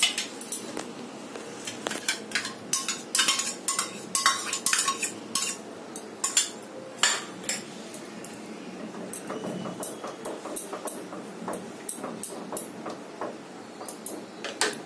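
A spoon clinking and scraping against metal cookware while ingredients are mixed, with sharp clinks coming thick and fast in the first half and more sparsely later.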